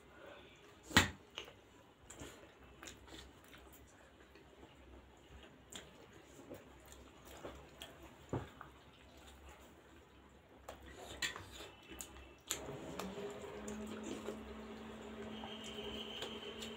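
Close-up eating sounds of steamed pork momos dipped in chutney: wet chewing, lip smacks and small mouth clicks, with one sharp click about a second in. About three-quarters of the way through a steady hum starts and holds to the end.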